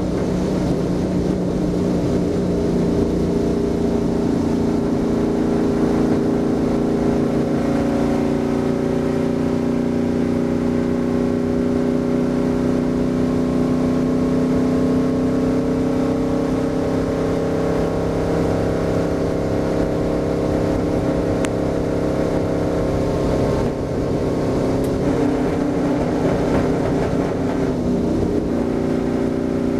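Stock car's V8 engine running hard at steady high revs, heard from inside the cockpit. Its pitch eases slightly and the level dips briefly a little past three quarters of the way through, then it pulls back up.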